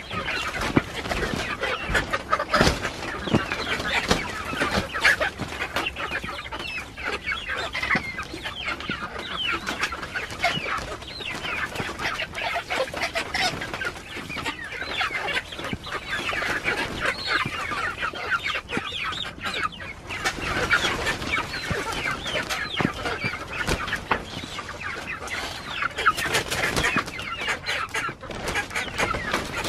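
A flock of young chickens calling over and over with short clucks and peeps, while the bottomless wooden chicken tractor is dragged over gravel, crunching and knocking on the stones.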